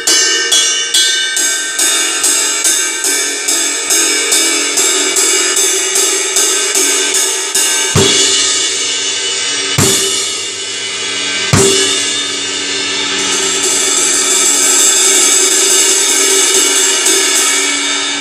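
Vintage Paiste 404 22-inch medium ride cymbal, B8 bronze, played with a stick. It starts with a steady ride pattern of about two and a half strokes a second. After about eight seconds come three heavy strikes roughly two seconds apart, then a building continuous wash, and a hard hit at the end.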